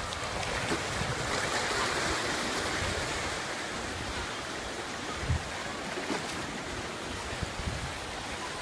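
Ocean surf washing onto a beach, a steady hiss that swells to a peak a couple of seconds in and then settles, with wind gusting on the microphone and a couple of low buffets.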